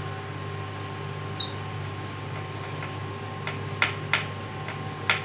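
A butter brush dabbing on a sandwich maker's nonstick plates: a few short clicks, mostly in the second half and about a third of a second to a second apart, over a steady background hum.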